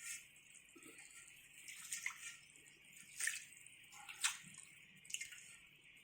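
Faint wet pops and drips from a pot of chicken curry with water just added, a handful of short pops over a low steady hiss.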